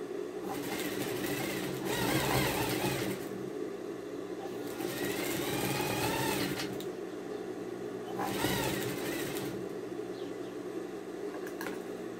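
Industrial straight-stitch sewing machine stitching in several short runs of a second or two, starting and stopping as the fabric is guided, over the steady hum of its motor. A few light clicks near the end.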